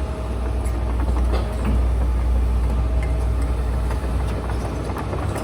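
Heavy diesel engine of demolition machinery running steadily, a low rumble with a faint steady whine above it.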